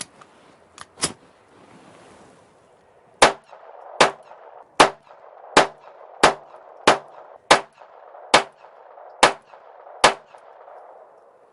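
Ruger SR22 .22 LR semi-automatic pistol fired ten times in steady succession, a shot roughly every three-quarters of a second. It is emptying a magazine of standard-velocity rimfire ammunition, and each round cycles the action. A couple of small clicks come about a second before the shooting starts.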